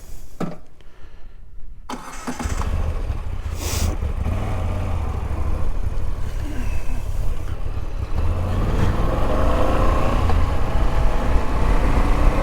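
Moto Guzzi V85 TT's air-cooled transverse V-twin engine starting about two seconds in, then running steadily with a low rumble that grows louder in the last few seconds.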